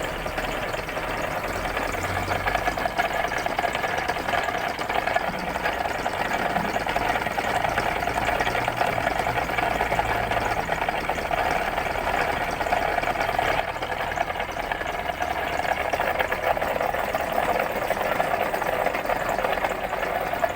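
A machine tool running steadily during machining, a continuous mechanical noise with a low rumble that fades about halfway through.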